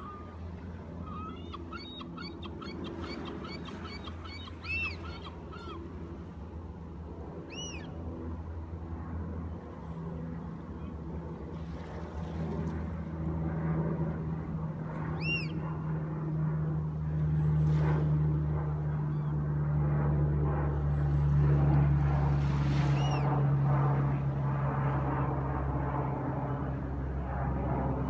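Seagulls calling: a quick run of calls in the first few seconds, then single cries several seconds apart. Underneath, an airplane's engine drone grows louder from about ten seconds in as the plane passes over.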